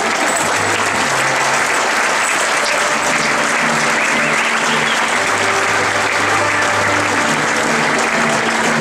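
Large audience applauding steadily, with music playing underneath in held low notes that change every second or so.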